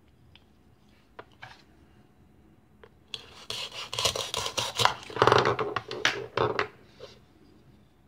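Hook-and-loop (velcro) fastening of a plastic toy onion tearing apart with a rough crackling rasp as a plastic toy knife cuts through it. It starts about three seconds in and lasts about four seconds, after a few light plastic clicks.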